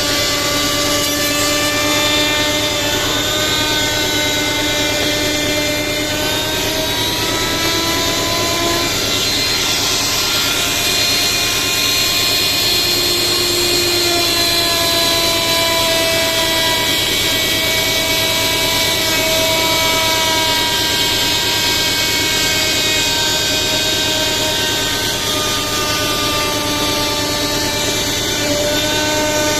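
A woodworking power tool running continuously, a loud steady whine and rush whose pitch shifts every few seconds as the tool is loaded.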